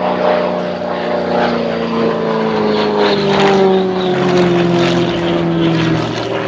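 Propeller engine of an XA41 aerobatic monoplane running at high power during a display, its pitch falling slowly and steadily.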